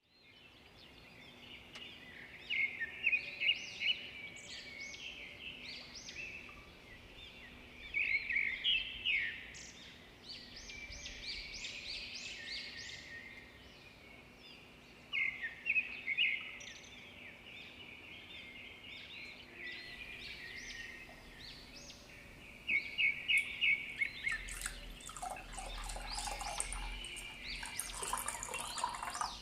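Small birds chirping and singing in repeated short trills. In the last few seconds a rougher, wider sound joins in.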